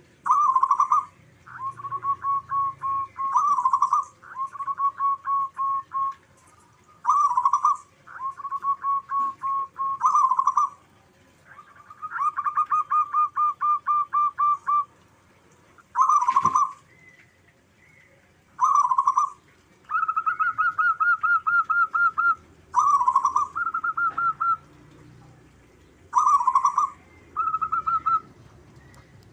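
Zebra doves (perkutut) cooing: repeated phrases, each opening with a louder note and running on into a fast string of short staccato coos. The phrases come at two slightly different pitches that alternate, two birds answering each other.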